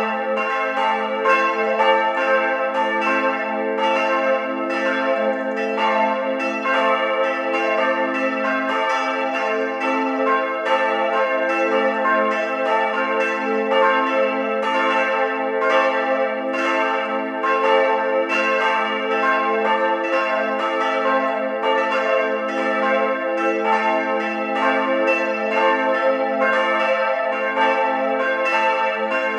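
Church bells of St. Johann Baptist in Mooshausen pealing: several swinging bells struck over and over, their strokes overlapping a few times a second over a continuous ringing hum.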